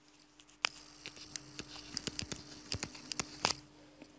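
Stylus tapping on a touchscreen while handwriting, an irregular run of light clicks starting about half a second in and stopping about three and a half seconds in.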